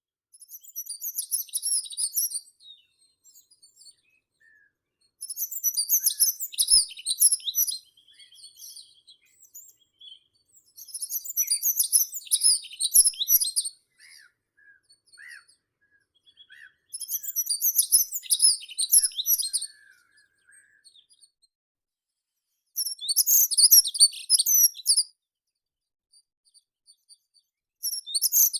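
A meadow songbird singing a short, very high, scratchy twittering phrase of about two seconds, repeated about every five to six seconds, with a few soft, lower bird notes in the pauses.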